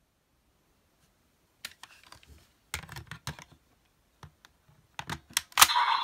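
Plastic clicks and snaps as raise buckles are handled and slotted into a Kamen Rider Geats DX Desire Driver toy belt, in two scattered runs after a quiet start. Just before the end a loud click sets off the belt's electronic sound effects and music.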